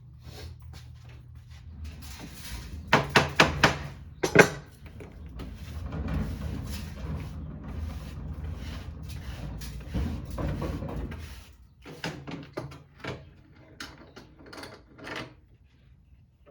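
Workshop handling noises of small metal parts and tools on a bench: a quick run of about four sharp knocks, then one louder clank, then several seconds of rubbing and scraping, and a few lighter clicks near the end.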